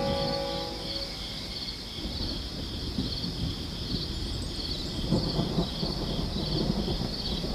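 Crickets chirping steadily, about three chirps every two seconds, under a night ambience. A low rumble of distant thunder swells about five seconds in. A held music chord fades out in the first second.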